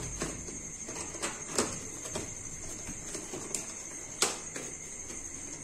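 Cardboard packaging being handled: an inner cardboard tray scraping and sliding out of a cooktop's carton, with scattered knocks and rustles, the sharpest knock about four seconds in.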